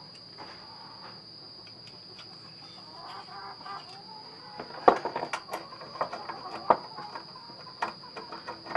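Sharp metal clinks and taps from a steel conibear trap and its wire being handled on a workbench, starting about five seconds in. Under them runs a steady high drone of crickets, and a hen clucks briefly a few seconds in.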